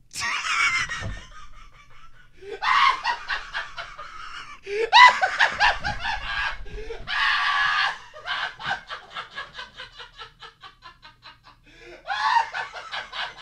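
A man laughing hard in long bursts. The laughter breaks down into a fading run of short, quick laughs, then a fresh loud burst comes near the end.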